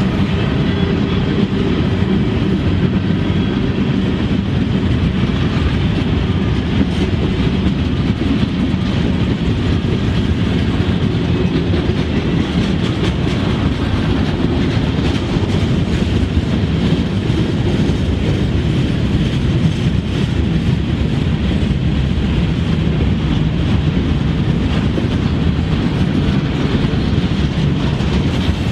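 CN freight train's cars rolling past close by: a loud, steady noise of steel wheels on rail. A hum from the departing diesel locomotives fades over the first few seconds.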